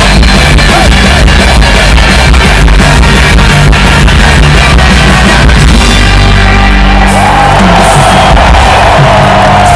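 A live rock band playing loud music, heard from inside the standing crowd at an arena concert, with a steady drum beat that drops away about six seconds in, leaving held notes.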